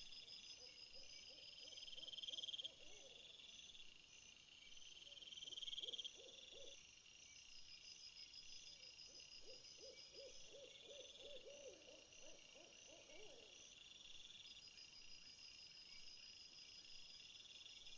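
Faint night chorus of insects, crickets by their sound, repeating high pulsed trills. A lower wavering, trilling animal call comes in three times, the longest near the middle.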